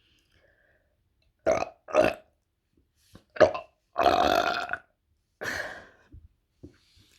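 A woman belching in a rapid series: two short belches in quick succession, a sharp one, then a longer, drawn-out belch lasting nearly a second, and a shorter one after it.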